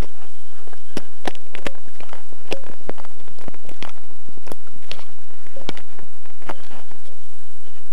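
Irregular clicks, knocks and rubbing of a mini camera being handled, with hands touching right at its microphone.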